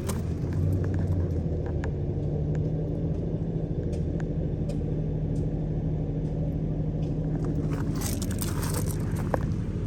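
New Holland B95 loader backhoe's diesel engine idling steadily. A few short crunches come near the end.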